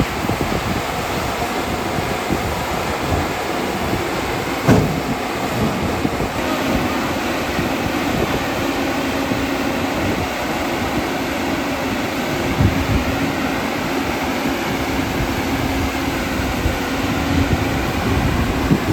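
JCB 245 HD LR long-reach excavator's diesel engine running steadily while it digs rock, with sharp knocks of the bucket on rock, the loudest about five seconds in and another near thirteen seconds.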